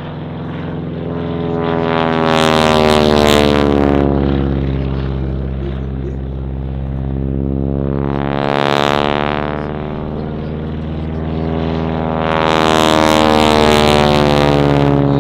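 A Boeing Stearman Kaydet biplane's radial engine and propeller drone through aerobatic manoeuvres, swelling loud and fading three times as the biplane sweeps past, with a whooshing, phasing sweep on each pass.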